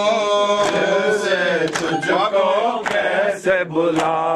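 Male voices chanting an Urdu noha lament on long, sliding held notes between lines of the refrain. A sharp beat sounds about once a second under the singing.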